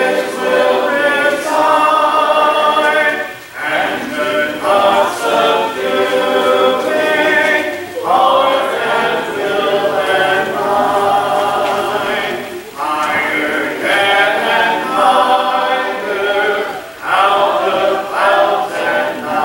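Congregation singing a hymn a cappella, with no instruments, led by a song leader beating time. The voices move in phrases of about four to five seconds with short breaks for breath between them.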